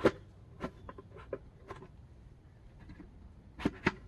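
Irregular sharp knocks and clicks, about seven in all, with two close together near the end.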